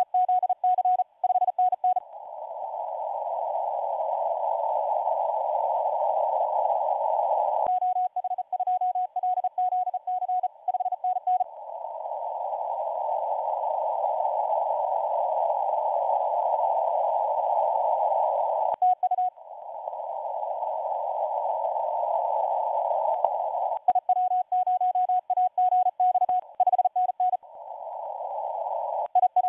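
Shortwave amateur radio receiver on the 20-metre band in CW mode: runs of Morse code in a single steady tone, keyed on and off, alternating with long stretches of hiss from band noise through a narrow filter. The hiss swells up gradually after each run of code.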